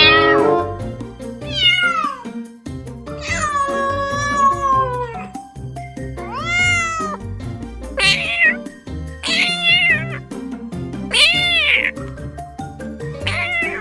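A domestic cat meowing repeatedly, about seven loud calls a second or two apart, most rising then falling in pitch, with one long drawn-out meow about three seconds in. Background music plays underneath.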